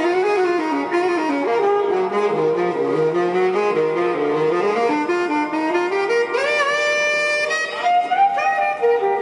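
Background music led by a saxophone playing a wandering melody over accompaniment, gliding up to a long high note about six and a half seconds in.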